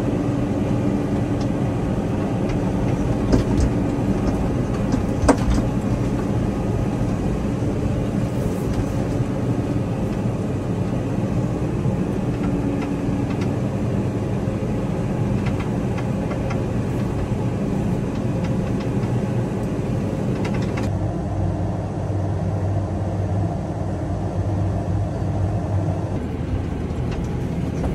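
Massey Ferguson 5S.145 tractor's engine running steadily while driving, heard from inside the cab as a low drone with a thin steady whine. There are a sharp knock or two about five seconds in, and the hiss above the drone drops away about three quarters through.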